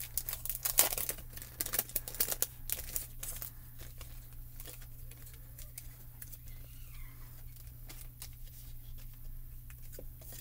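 Clear plastic stamp packaging crinkling and crackling as it is handled and opened. The crackles are busiest in the first few seconds, then thin out to scattered lighter ones.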